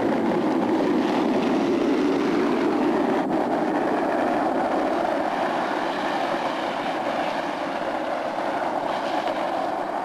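Skateboard wheels rolling down an asphalt street, a steady rumble that eases slightly about two-thirds of the way through.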